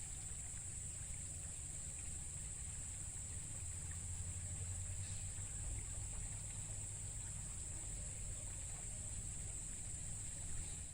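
Insects droning as one steady, high-pitched tone, over a low rumble.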